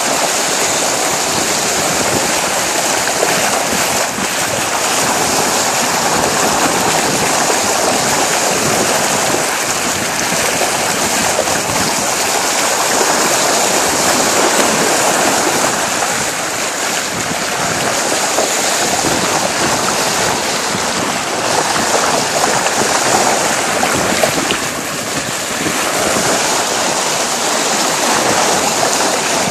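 Bow wave of a 42-foot sailboat under way, water rushing and splashing steadily along the hull.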